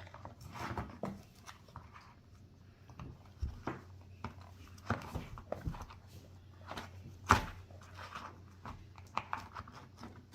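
Scattered small knocks, taps and scrapes from plastic digging tools and toys being handled in kinetic sand. The loudest knock comes about seven seconds in.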